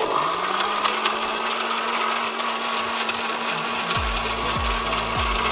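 Electric countertop blender switched on and running steadily, mixing chocolate drink powder with water. A low pulsing joins in about four seconds in, repeating slightly under twice a second.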